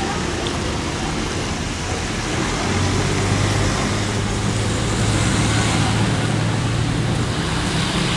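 Road traffic: cars passing slowly close by, with a steady low engine hum that grows louder about three seconds in.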